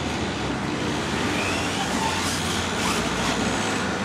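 Radio-controlled off-road car running on a dirt track: its motor gives a faint whine that rises briefly a little past two seconds in, over a steady rushing background noise.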